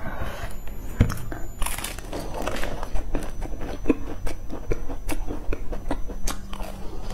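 Close-miked biting into and chewing flaky baked pastry, its crisp layers crackling in short, sharp crunches several times a second. A single louder knock about a second in.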